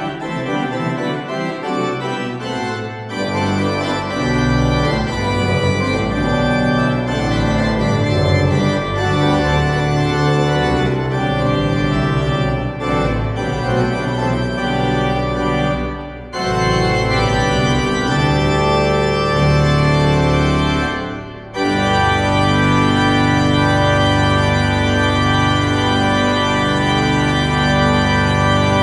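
J.W. Walker & Sons pipe organ playing, with a deep pedal bass under sustained chords. The music breaks off briefly twice, about 16 and 21 seconds in, and closes on a long held final chord.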